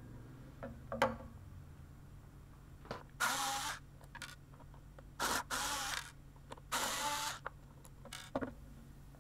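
Bosch cordless screwdriver running in three short bursts, each under a second, backing out the three screws that hold a massage gun's bottom cap. A few light clicks of the parts being handled come in between.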